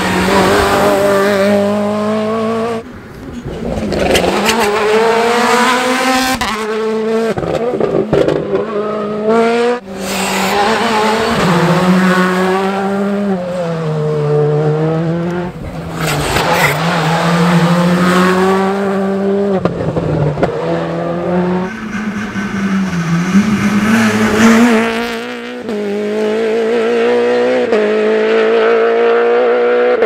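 Rally cars going by one after another on a tarmac stage, their engines revving hard, rising and falling in pitch through gear changes and lifts into corners.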